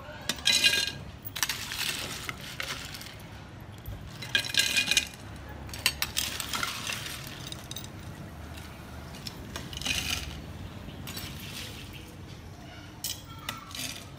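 Ice cubes clinking and clattering as a metal scoop digs them out of a glass bowl and tips them into a glass pitcher, in a series of short bursts a few seconds apart.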